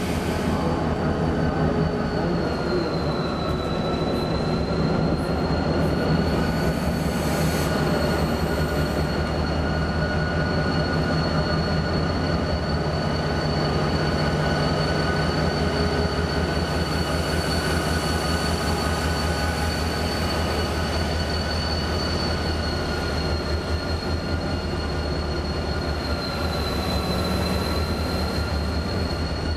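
Railway turntable turning under load: a steady low drone from its drive and a persistent high squeal from the turntable running on its rail. The squeal dips slightly in pitch twice.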